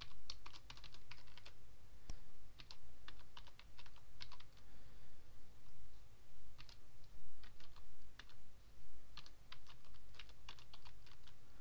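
Typing on a computer keyboard: three runs of quick keystrokes separated by pauses of a second or two.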